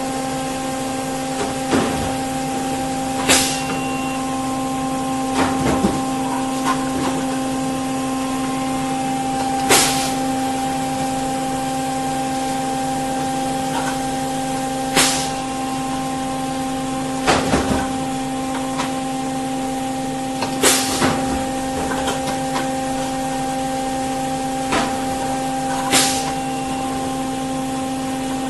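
Solder paste filling machine running with a steady hum, its pneumatic dispensing valve firing a short, sharp burst of air every few seconds, with smaller clicks between.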